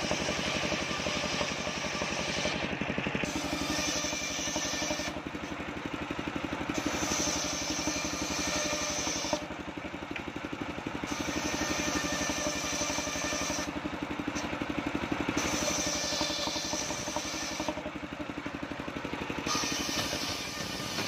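Engine-driven homemade circular saw running steadily, its engine pulsing evenly underneath. A higher-pitched cutting noise comes in for two to three seconds and cuts out again, about every four seconds, as the blade rips waru wood into battens.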